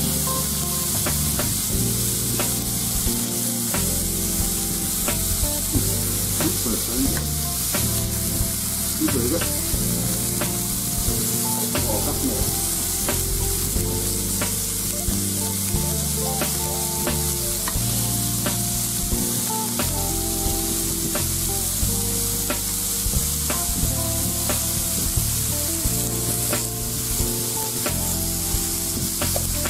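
Beef slices and shrimp sizzling steadily on an indoor grill's ridged plate, with scattered clicks from metal tongs turning the meat. Background music plays underneath.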